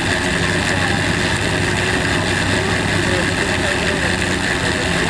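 An engine running steadily at an even speed, with faint voices behind it.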